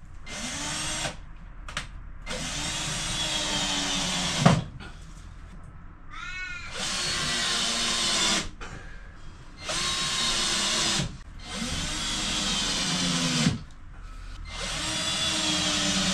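Cordless drill-driver driving screws in about six short bursts of one to two seconds, the motor whine rising as each burst starts, several ending in a sharp knock as the screw seats.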